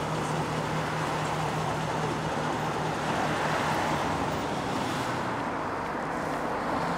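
Steady city street traffic noise: a continuous wash of passing cars with a low engine hum.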